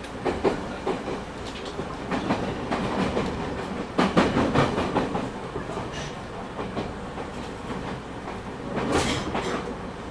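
Interior running sound of a JR East 209 series 3000 commuter train, recorded in a motor car, with its wheels clattering over rail joints. The loudest knocks come about four seconds and again about nine seconds in.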